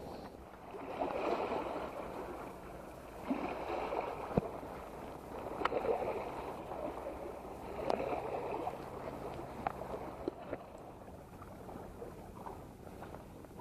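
Sea water washing and sloshing at a rocky shoreline in slow surges about every two seconds, with a few sharp clicks among them.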